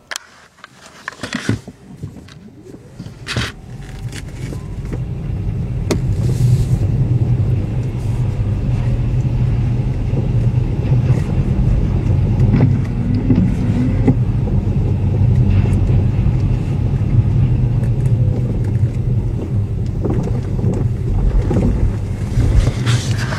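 Low road and tyre rumble inside a Tesla's cabin while driving over a rough path. It builds over the first few seconds and then holds steady, with occasional faint knocks. The knocks are the front shock absorbers clattering in the air-suspension struts, which the owner hears as much reduced but still there.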